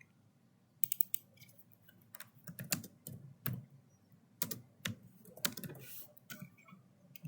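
Computer keyboard being typed on: irregular keystrokes, some single and some in short quick runs.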